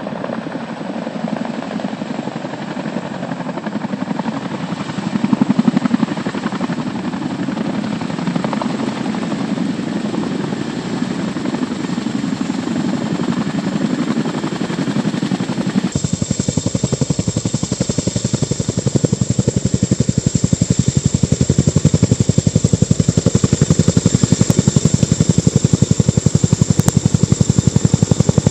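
CH-47 Chinook tandem-rotor helicopter hovering low: steady rotor and turbine noise. About halfway through the sound turns closer and louder, with a rapid regular beat of the rotor blades and a steady high turbine whine.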